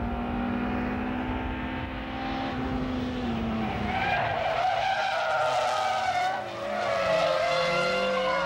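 Two 1.3-litre four-cylinder hatchbacks, a Suzuki Cultus GT-i and a Honda City CZ-i, racing at high revs. The engine note drops in pitch about three to four seconds in as they slow for a corner, then tyres squeal through the corner to the end.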